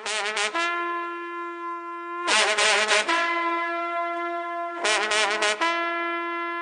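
Karnay, the long Uzbek brass horn, sounded in long blasts. Each blast opens with a loud, blaring rasp and settles into one steady held note, with a fresh blast about every two and a half seconds.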